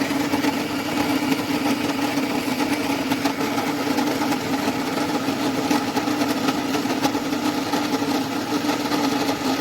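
Electric burr coffee grinder's motor running steadily under load as it grinds beans to a medium, moka-pot grind, with a strong steady hum.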